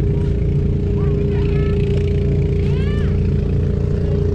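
An engine running steadily with a constant hum and low rumble. High-pitched voices call out over it about a second in and again near three seconds.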